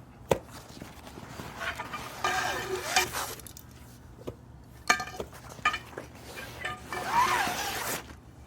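Pole saw and pruner parts being handled: a sharp knock, scattered clicks and clinks, and two longer scraping stretches as pieces are moved and slid about.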